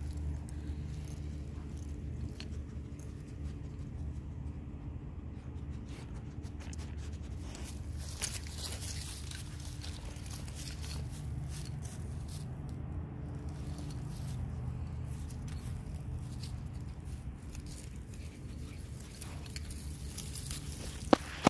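Dogs sniffing and rustling through grass, with faint patter and snuffling, over a steady low hum. A sharp click sounds near the end.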